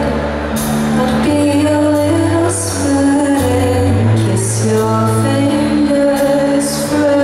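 Live band music: a woman sings a slow melody into the microphone over a band playing sustained low chords that change every second or so.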